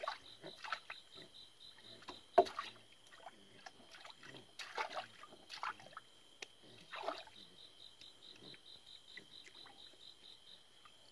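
Water splashing and sloshing in a small plastic tub as a toddler shifts about in it, in irregular strokes with one sharp splash about two and a half seconds in. Insects trill steadily in the background, with a faster pulsed chirping that stops after a few seconds and comes back later.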